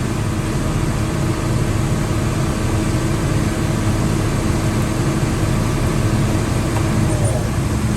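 CAT D6M XL dozer's diesel engine running steadily at high throttle, heard from inside the cab.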